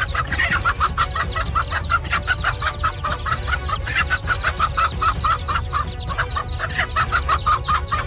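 A hen clucking rapidly and over and over, about five clucks a second, in alarm at a snake among her chicks. Fainter high chick peeps run through it.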